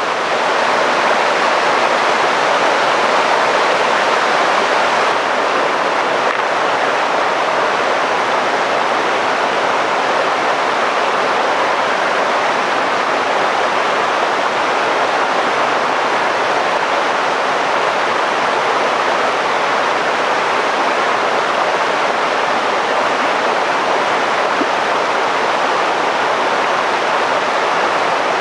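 Steady rushing of a river, an even, unbroken wash of water noise.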